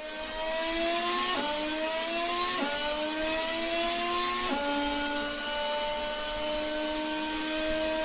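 Mercedes-Benz 2014 Formula One 1.6-litre turbocharged V6 accelerating under load, its pitch rising through each gear. It drops sharply at quick upshifts, about a second and a half, two and a half and four and a half seconds in, then climbs slowly in a long gear.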